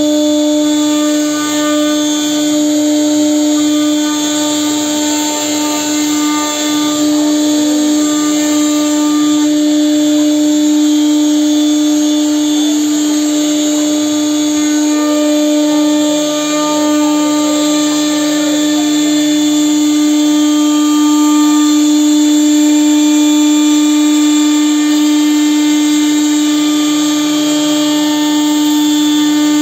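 CNC router spindle running at a steady, unchanging pitch as its cutter carves a relief pattern into a wooden door panel. The sound is an even whine mixed with the rasp of the bit cutting wood.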